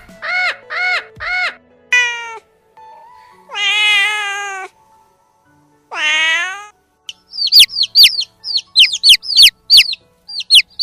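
A domestic cat meowing twice: one long meow and then a shorter one. Before the meows comes a quick run of short squawks, and after them a rapid series of high, falling squeaks.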